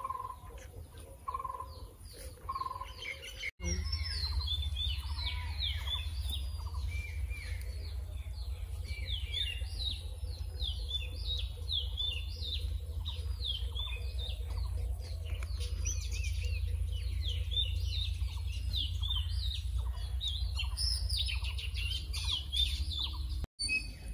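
A flock of small birds chirping in a dense, overlapping chorus of quick falling high calls, with a few sparser lower calls at first, over a low steady rumble.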